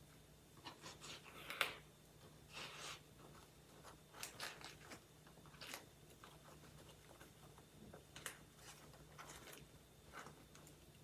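Faint, scattered crinkling and rustling of banana leaves and string as a banana-leaf parcel is tied up by hand, in short crackles.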